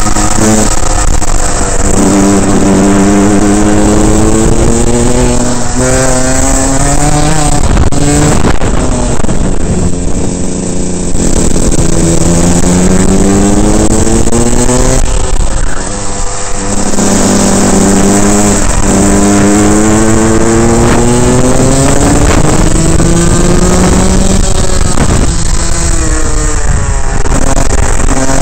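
Rotax 125 two-stroke single-cylinder kart engine at racing speed, heard from the driver's helmet: the revs climb steadily along each straight and drop away sharply into the corners, three or four times over.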